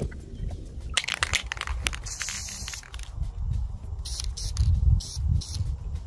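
Wind buffeting the microphone as an uneven low rumble, with bursts of crackling and rustling noise: a longer hiss about two seconds in and several short crackles around four to five seconds in.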